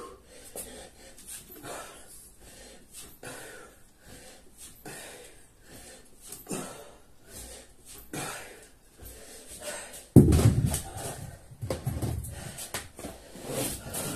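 A man breathing hard in wheezing gasps, about one every second and a half, winded at the end of a long burpee and kettlebell-swing workout. About ten seconds in, a louder deep rush of noise lasts a couple of seconds.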